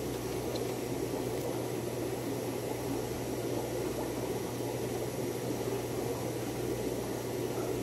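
Steady room background: a constant low hum and an even hiss with no distinct events.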